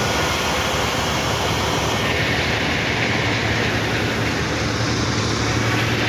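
Combine harvester working the wheat: its engine running steadily under a broad rush of machinery noise, a little louder from about two seconds in.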